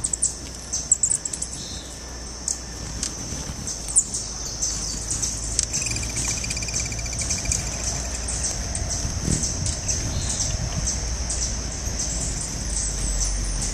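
Hummingbirds calling at a feeder: quick, sharp, high chip notes, most frequent in the first few seconds, over a steady high-pitched drone. A short warbling trill sounds about six seconds in.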